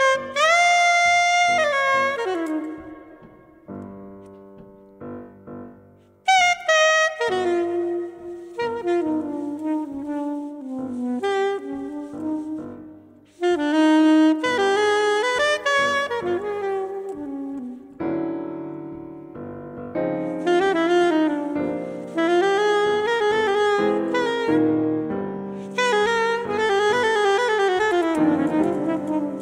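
Soprano saxophone and grand piano playing jazz as a duo: the saxophone plays phrases of quick runs and held notes over the piano. It opens with a note that slides up and is held for about two seconds.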